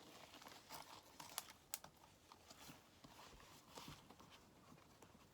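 Faint, scattered small clicks and rustles of hands feeling around the floor to pick up dropped bits of slime.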